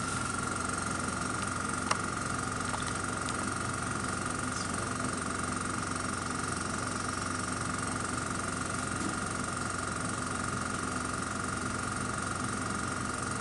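Air compressor supplying a Sherwood M410 flame photometer, running with a steady hum and a held tone, with one faint click about two seconds in.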